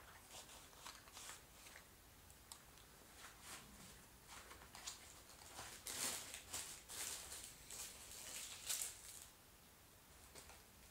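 Faint rustling and crinkling of plastic packaging being handled, a scatter of short crackles that grows busier and louder for a few seconds in the middle.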